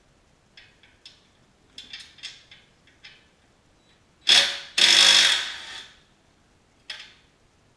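Hand work on a Duromax 440 small engine: a run of light metallic clicks and ticks, then two loud rushing bursts of noise, the second lasting about a second, and one more click near the end.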